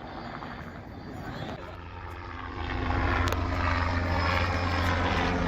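Low-flying helicopter's engine and rotor drone, growing louder about halfway through.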